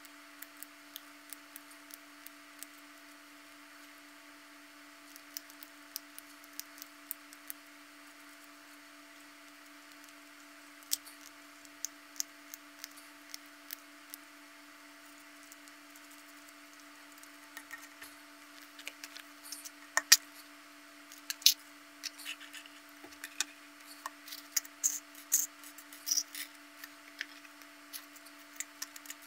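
Small plastic parts of a VeryPuzzle C103-M5 twisty-puzzle kit clicking and tapping as they are handled and fitted together during assembly. The clicks are scattered at first and come thicker and louder in the second half, over a steady faint hum.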